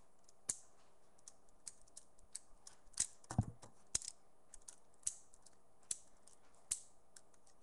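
Lego-brick balisong being swung and flipped, its plastic handles clacking together in irregular sharp clicks, about a dozen loud ones among smaller ticks.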